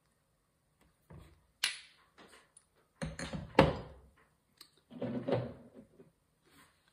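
Knocks, clunks and rustling of salt and pepper shakers being handled and set down while the next ones are taken out of a box, in a few separate clusters, the loudest knock about three and a half seconds in.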